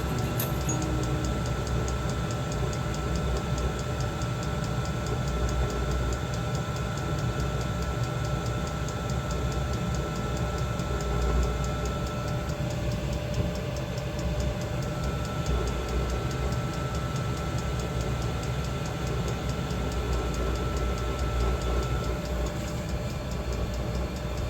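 Diesel heater running: a steady combustion and blower rumble with a high whine, and the fuel pump ticking evenly several times a second.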